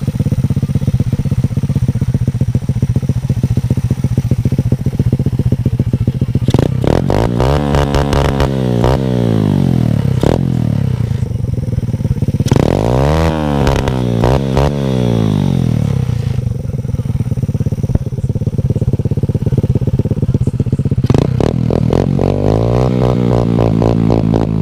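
125 cc four-stroke engine of a homemade beer-crate kart idling, then revved up and down three times with rising and falling pitch, settling back to a steady run between revs.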